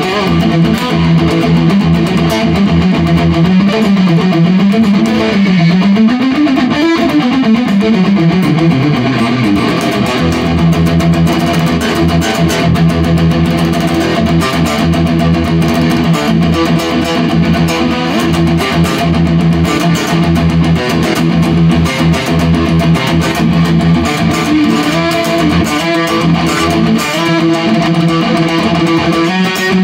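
Electric guitar played through an amplifier, with sustained notes; a few seconds in, a held note wavers and sweeps up, then slides back down.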